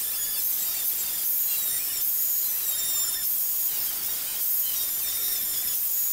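Makita angle grinder running under load, its disc grinding down steel sheet-metal patch welds in a steady, high-pitched shriek with whining tones.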